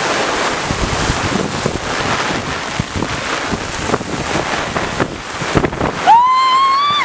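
Heavy rain pouring down, a dense hiss with scattered drops knocking close by, likely on an open umbrella. About six seconds in, a loud high-pitched squeal cuts in and holds for about a second.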